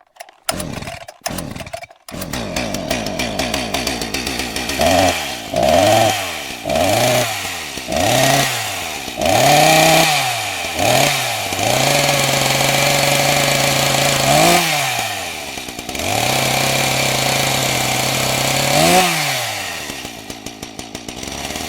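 Chainsaw engine started with a few short bursts, then running and revved up again and again in short blips, twice held at high revs for a few seconds, dropping back toward idle near the end.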